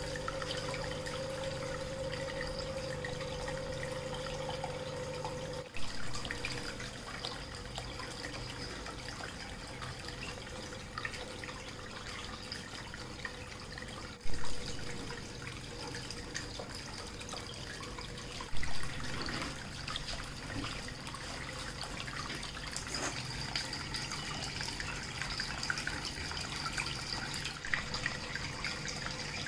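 Water trickling and splashing down a homemade cement indoor waterfall fountain, running steadily over a low hum. There are three brief louder sounds along the way.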